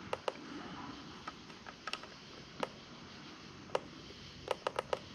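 About a dozen light, irregular clicks of buttons being pressed on a Godox LED light's control panel, some in quick pairs and runs, over faint room hiss.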